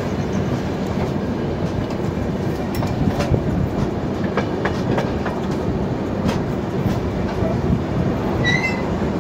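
Rajdhani Express passenger train running, a steady rumble with the wheels clattering over rail joints. Near the end there is a brief high-pitched tone.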